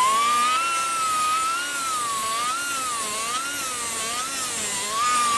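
Pneumatic right-angle sander with a small sanding disc whining as it grinds excess TIG-weld filler flush on an aluminum wheel's rim lip. Its pitch dips and rises every second or so as the load on the disc changes.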